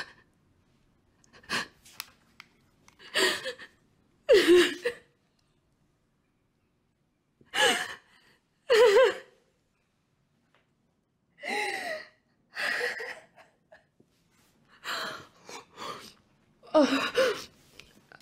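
A woman sobbing: a series of short, broken cries and gasping breaths with silent pauses between them.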